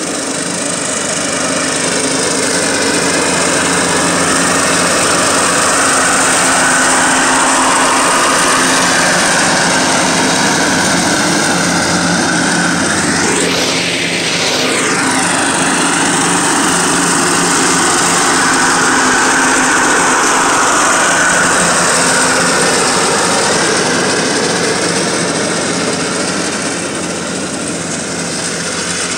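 Cub Cadet riding lawn tractor running steadily and mowing with the blades engaged, passing close by about halfway through. The deck's blade spindle bearings are worn, which the mechanic blames for a metal-against-metal scraping noise and a cut that scalps lower on one side.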